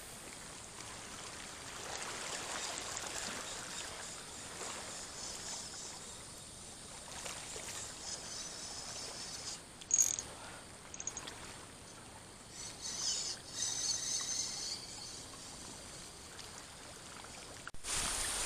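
Calm, shallow seawater lapping and trickling over a coral-rock shoreline, a steady watery wash. A sharp click comes about ten seconds in, and a few brief louder splashy bursts follow a few seconds later.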